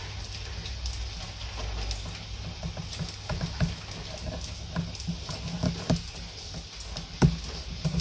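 Steady rain falling over a low, continuous rumble, with irregular sharp drips striking a nearby surface; the drips come more often in the second half, and the loudest is just after 7 seconds in.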